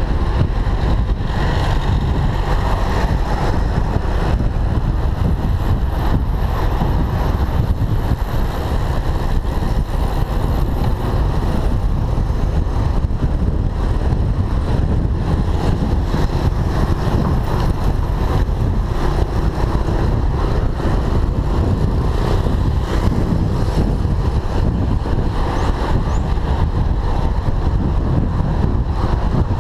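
Steady wind rumble on the microphone of a camera mounted on a moving road bike, mixed with the noise of motor traffic on the road.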